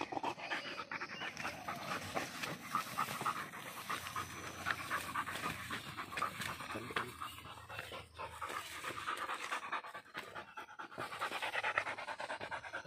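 Pit bull panting hard and quickly, a steady run of short breaths, while it bites and worries a monitor lizard.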